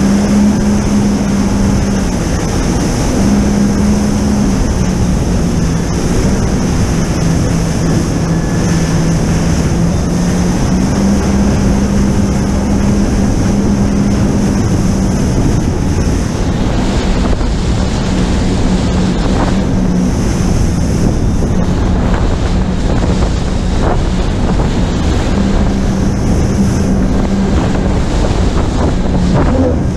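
Jet ski engine running steadily while under way, its pitch stepping slightly up and down, over the rush of water and wind buffeting the microphone.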